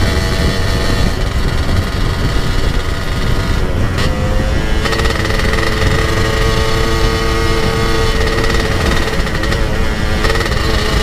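Two-stroke scooter engine running under way, heard from the rider's seat with heavy wind rumble on the microphone. The engine note shifts about four seconds in, then holds steady.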